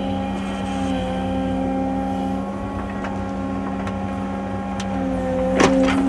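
Excavator's diesel engine running steadily with a constant hydraulic whine while the machine works its bucket along a bank, with a few light clanks near the end.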